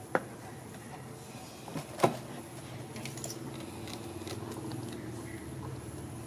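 Two sharp clicks of a metal spoon about two seconds apart, the second louder, over a steady low hum.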